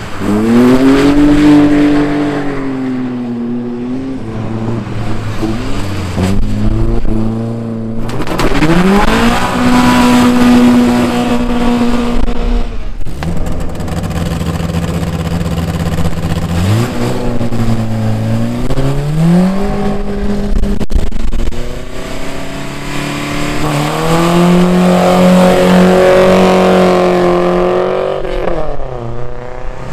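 Racing engines revving up and backing off as cars accelerate out of corners, the pitch sweeping up sharply about four times. More than one engine is heard at once.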